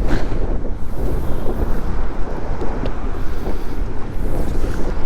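Strong gusting wind buffeting the microphone: a loud, rough low rumble that flutters constantly in level.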